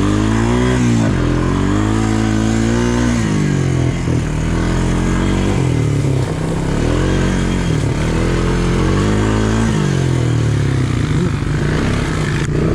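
ATV engine being ridden hard, its pitch climbing and dropping back several times as the throttle is opened and eased off.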